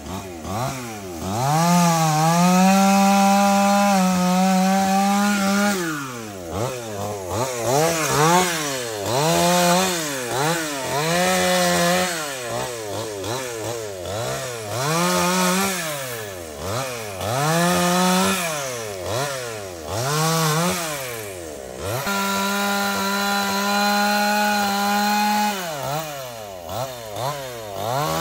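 Stihl two-stroke chainsaw cutting through dead jackfruit branches. The engine is revved up and down again and again, about once a second through the middle stretch. Near the start and again near the end it is held at full throttle for a few seconds.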